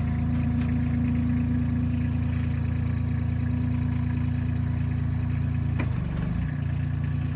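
Kubota D1105 three-cylinder diesel of a tracked mini skid steer running steadily while the hydraulics lift the boom, with a steady hum over the engine note. About six seconds in there is a click and the engine note briefly changes before settling.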